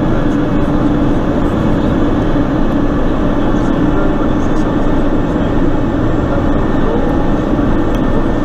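Pilatus PC-12's single PT6A turboprop engine and propeller running steadily, heard inside the cockpit as a loud, even drone.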